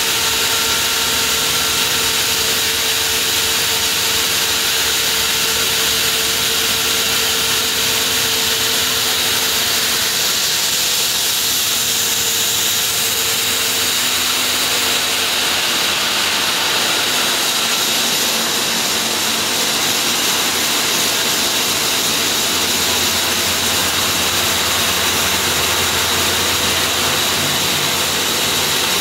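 Large water-cooled diamond disc saw of a block-cutting machine cutting through a granite block: a steady, loud grinding noise with a high steady whine over the hum of its electric drive motor.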